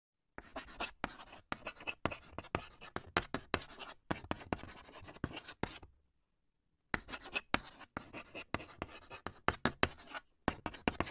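Writing sound effect of chalk scratching on a blackboard in many quick strokes. It comes in two runs of about five seconds each, with a pause of about a second between them.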